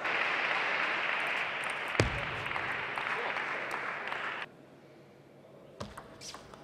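Crowd applauding in a sports hall after a table tennis point, with one sharp knock about two seconds in. The applause cuts off abruptly after about four and a half seconds, and near the end come a few light clicks of a table tennis ball being hit in a rally.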